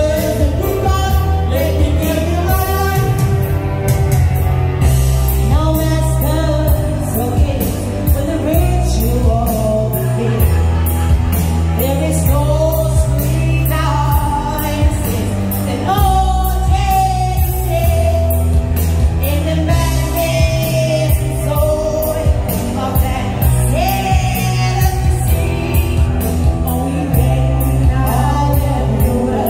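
A woman singing into a handheld microphone over loud backing music with a strong bass line.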